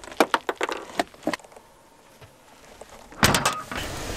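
Gear being handled in the back of an SUV. Quick sharp knocks and clicks come first, then a quieter stretch, then a loud cluster of knocks and rustling about three seconds in, followed by a steady hiss.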